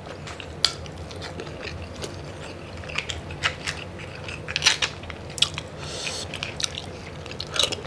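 Close-up eating sounds: a metal spoon clicking and scraping against a cooked mud crab's shell as the crab fat is scooped out, mixed with chewing and mouth smacks. The sounds are short, irregular clicks and crackles, busiest in the middle.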